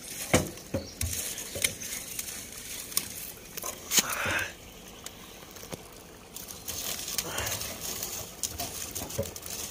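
Firewood being poked and shifted with a wooden stick in the firebox of a rusty metal stove: irregular knocks and clacks of wood on wood and metal, sharpest about four seconds in. The fire is being stirred up because it is burning poorly.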